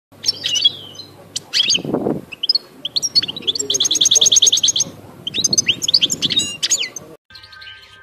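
European goldfinch singing: quick twittering chirps and a fast run of rapid repeated notes about four seconds in, cut off suddenly near the end. A short low whoosh sounds about two seconds in.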